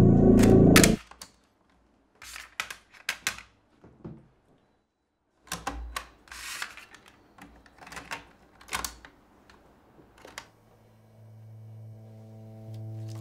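Mechanical clicks and clacks of a Sony portable cassette recorder being handled: its cassette door and piano-key buttons being worked. Loud music cuts off about a second in, and soft music fades up near the end.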